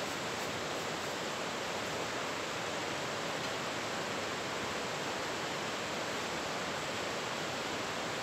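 River water rushing: a steady, even hiss with no breaks or single pops.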